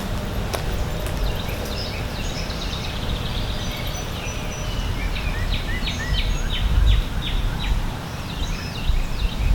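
Songbirds singing, with a run of quick repeated notes, about five a second, in the middle, over a steady low rumble.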